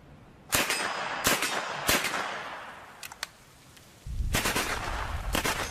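Gunfire: three single shots about two-thirds of a second apart, each trailing off in an echo, then two short bursts of rapid fire. A low rumble sets in about four seconds in, just before the bursts.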